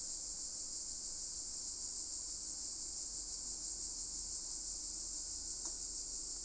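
A steady high-pitched hiss, even and unbroken, with a faint tick about five and a half seconds in.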